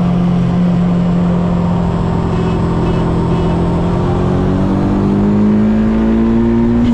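Turbocharged Honda Civic running under way, its engine note holding steady and then climbing slowly in pitch over the last few seconds as the car gathers speed.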